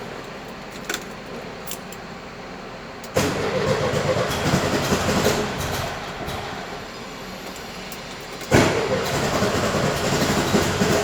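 VW Beetle's air-cooled flat-four engine cranked and started about three seconds in, running loudly, then easing off. About eight and a half seconds in it comes back up suddenly, louder. It runs with the noise from its new alternator, which the owner thinks is a bad bearing.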